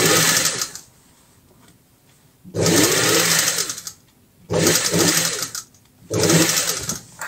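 Industrial lockstitch sewing machine stitching fabric in four short runs of about a second each, the motor humming with a fast, even stitching rattle, stopping between runs as the fabric is guided.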